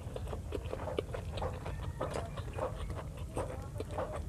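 Close-miked eating sounds: wet chewing and lip smacks of chicken adobo and rice, many short irregular clicks, over a steady low hum.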